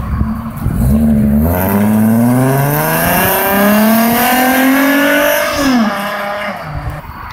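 1995 Acura Legend's 3.2-litre V6, fitted with OBX headers and a full Remus exhaust, accelerating hard away: the note climbs, drops twice at upshifts and climbs again, then falls and fades about six seconds in.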